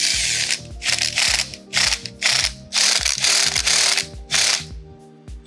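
Ratchet wrench clicking in short bursts, about two strokes a second, as a 5 mm Allen bolt is worked loose from a motorcycle handlebar's bar end. The bar end is bent, which makes the bolt stiff to remove.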